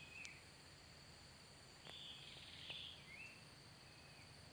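Near silence: faint forest ambience with a steady high insect drone and a few soft, short bird chirps, plus a few faint clicks.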